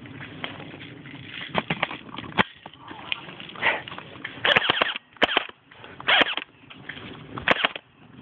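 Airsoft gun shots: sharp single cracks about two seconds in, a quick cluster of three to four about four and a half seconds in, and more spaced out toward the end, over a steady rough crunching of movement across dry forest floor.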